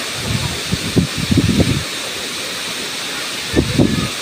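Steady rushing of a tall waterfall pouring into its plunge pool. A few short, uneven low bursts sit on top of it, a cluster in the first two seconds and another near the end.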